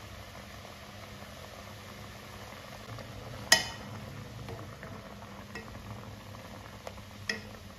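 Pot of water with cubed potatoes boiling steadily, bubbling, while a metal spoon stirs them. The spoon clinks sharply against the pot twice, about three and a half seconds in and again near the end, the first clink the louder.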